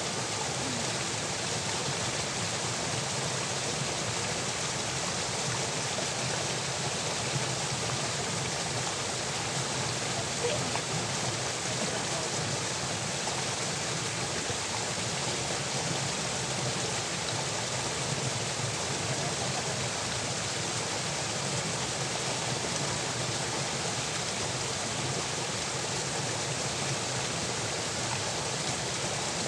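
Water running steadily in an irrigation channel, pouring out of a culvert under a small stone bridge.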